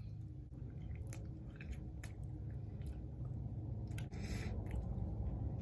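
Close-up chewing of a bite of Snickers bar topped with ketchup: wet mouth clicks and smacks at irregular intervals, with a short rush of noise about four seconds in.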